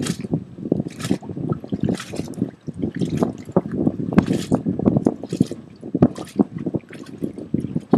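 Choppy wavelets lapping and slapping against a wooden dock in irregular splashes, some sharper than others.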